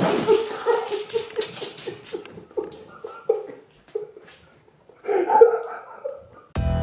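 A person laughing in a run of short bursts that trail off, with a louder laugh about five seconds in.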